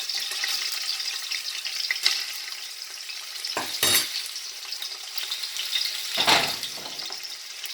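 Cubed pork frying in hot vegetable oil in a pot, a steady sizzle, broken by a few knocks about two and four seconds in and a louder, longer clatter about six seconds in.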